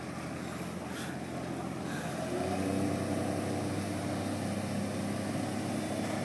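Outboard motor on a small open motorboat running, then throttled up about two seconds in: the engine note rises and grows louder as the boat speeds away.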